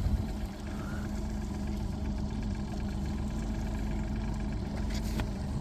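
Boat's outboard motor running steadily at low trolling speed, a constant low hum.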